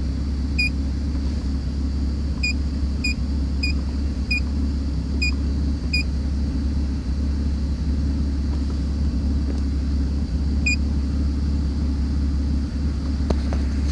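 Idling engine of a 2002 BMW 330Ci, a 3.0-litre straight-six, with a steady low rumble. The rough running comes from a random misfire (code P0300), which is put down to vacuum leaks. Short electronic beeps from a scan tool come about eight times, mostly in the first half, as its buttons are pressed.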